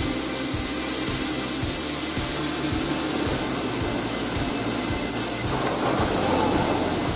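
Sawmill machinery running: a steady mechanical rumble with a regular low clatter, a couple of knocks a second.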